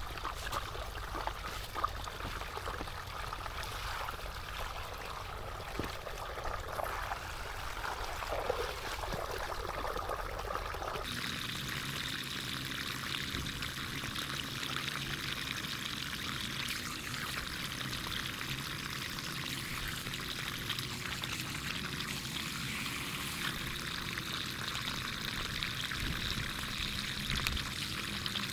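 Water falling and pouring steadily into a small channel, splashing as a beetroot and a papaya are washed in it. The sound changes abruptly about eleven seconds in.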